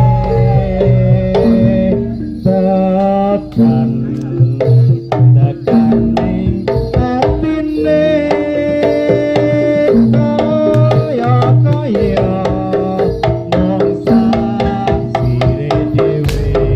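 Live jaranan accompaniment: kendang hand drums beating a dense, driving rhythm under a melody of held notes that step up and down.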